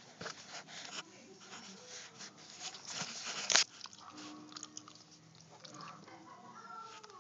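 A husky chewing and crunching food at its bowl: irregular crunches and clicks, with one sharp click about three and a half seconds in.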